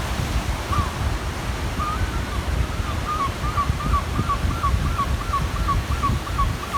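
Waves washing in and wind buffeting the microphone, with a bird calling a quick run of short, high notes, about three a second, from about three seconds in.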